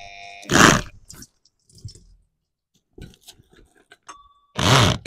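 Faint scattered clicks and taps of handling, with a short beep about four seconds in, then a loud burst of a person's voice near the end, its pitch arching up and down.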